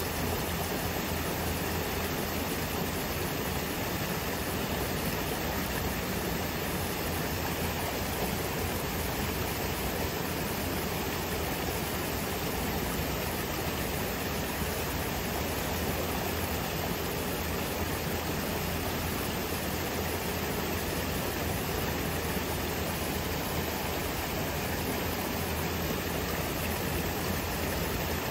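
Water of an ornamental fountain running steadily over rocks in a shallow stream bed, an even wash of water noise with no breaks.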